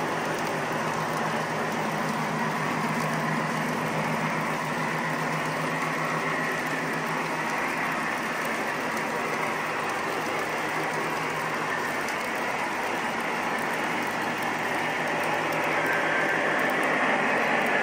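O-gauge model freight cars rolling past on the track: a steady, fine clatter of metal wheels over the rails and joints. It grows louder near the end as model diesel locomotives come by.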